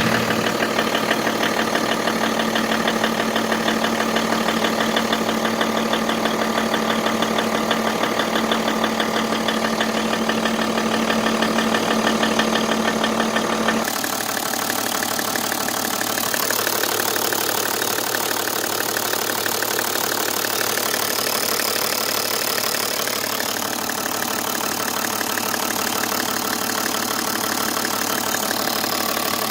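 Toyota 1HD-FTE 4.2-litre straight-six turbodiesel idling with a knock, a fast even ticking over the engine's steady running. About halfway through the sound changes abruptly and a steady low hum drops out.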